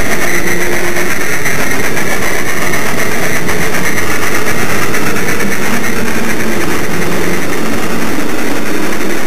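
A 16mm-scale garden railway train running on its track: a loud, steady mechanical running noise with a high hiss and a lower hum that shifts in pitch.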